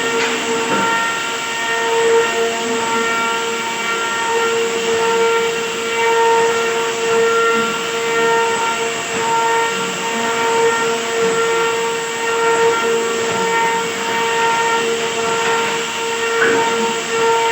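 High-speed woodworking router spindle running steadily: a constant high whine with a rushing hiss over it.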